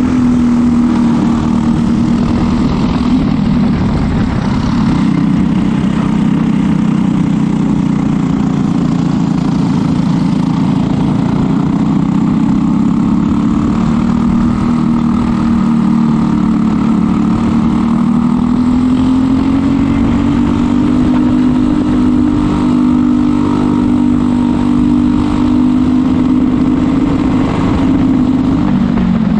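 Briggs & Stratton LO206 single-cylinder four-stroke kart engine at race pace, heard onboard from the driver's seat, its pitch rising and falling with the throttle. It drops a few seconds in, climbs steadily through the middle, and falls off near the end as the kart slows from about 6000 rpm.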